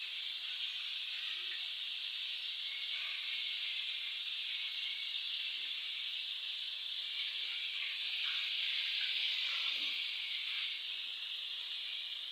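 Breaded chicken pieces deep-frying in hot oil: a steady sizzle that swells slightly around eight to ten seconds in.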